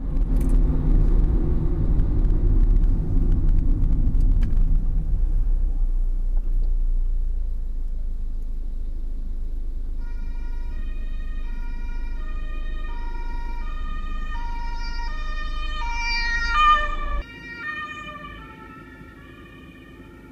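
Heavy low rumble of driving noise, then about halfway in the German two-tone sirens (Martinshorn) of an ambulance and an emergency doctor's car start, their alternating notes overlapping out of step. Near the end the rumble cuts off suddenly and the sirens carry on quieter.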